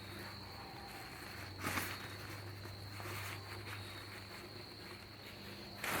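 Steady high-pitched insect trill, such as crickets, with a faint low hum underneath and a brief rustle about two seconds in.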